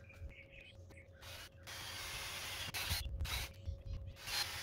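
Cordless drill with a step drill bit cutting into steel channel iron: a scraping, grinding noise in short stop-start runs, beginning about a second in.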